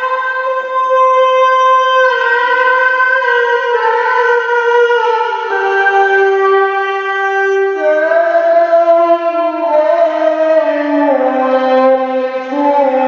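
A man's voice reciting the Qur'an in the melodic tilawah style, amplified through a microphone: long, ornamented notes held without a breath, the melody stepping gradually down from a high pitch to a lower one.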